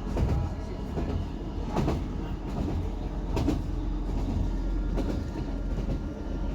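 Class 158 diesel multiple unit running along the line, heard from on board: a steady low rumble of engine and wheels on rail, with a sharp click from the track every second or two.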